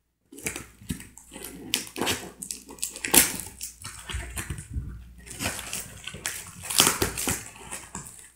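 Cardboard shipping box being cut and opened by hand: irregular rustling, scraping and tearing of cardboard and packing tape.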